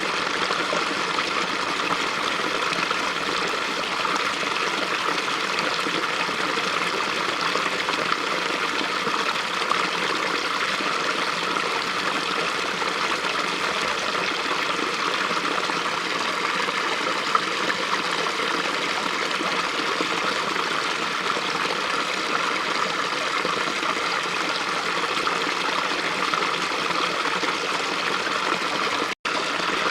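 Small brook flowing steadily: a continuous rush and trickle of running water, with a split-second gap in the sound near the end.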